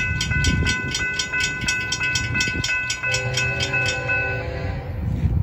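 Railroad grade-crossing warning bell ringing about three strikes a second, stopping about four seconds in as the gates rest down. Over its last second or so, a distant locomotive horn sounds faintly as a low chord.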